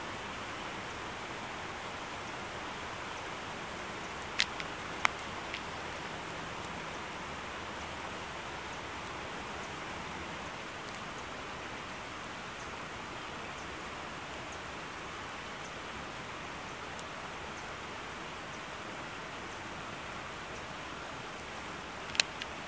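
Steady rain falling, an even hiss, with a few sharp taps: two about four and five seconds in and one near the end.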